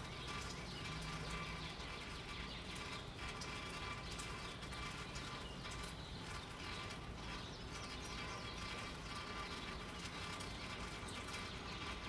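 Steady outdoor ambience of gentle rain: an even hiss with scattered faint ticks, under a thin, steady hum of several high tones.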